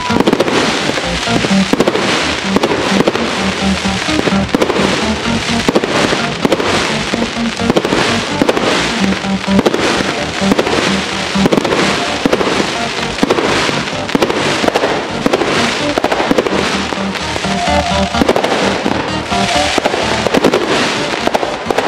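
Aerial fireworks bursting in rapid succession, several bangs a second, with music playing alongside.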